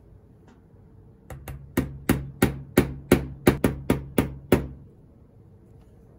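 A small hammer tapping a riveting tool about a dozen times in quick succession, three to four sharp metallic taps a second, each with a short ring from the steel plate beneath, flaring over a tiny brass rivet that joins two model valve gear rods.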